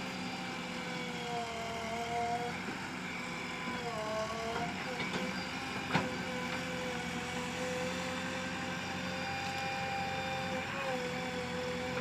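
JCB 3DX backhoe loader's diesel engine running under load, with a whine whose pitch dips and rises a few times as the machine works. A single sharp knock about six seconds in.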